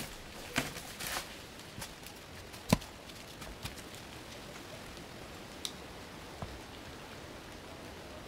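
Steady hiss of light rain in a forest, broken by a few scattered sharp knocks and crackles in the first half. The loudest is a single sharp knock about two and a half seconds in.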